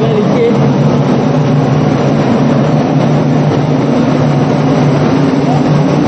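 A loud, steady mechanical hum with a constant low drone.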